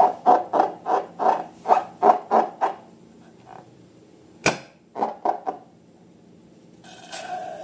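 Slime being squeezed and worked by hand: a run of quick squishy pulses, about three a second, that stops after about two and a half seconds. A single sharp snap comes about four and a half seconds in.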